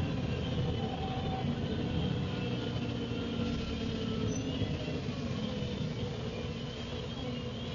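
Dennis Trident double-decker bus heard from inside as it drives, engine and drivetrain running steadily with faint whining tones from its noisy rear axle; the loudness eases slightly toward the end.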